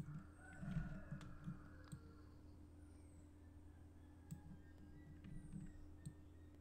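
Faint, scattered computer mouse clicks over a steady low electrical hum, close to near silence.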